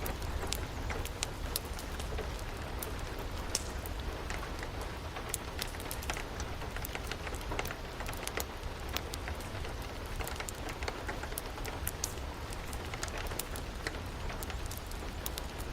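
Steady rain mixed with a crackling wood fire: an even hiss with frequent sharp pops and crackles scattered throughout, over a low rumble.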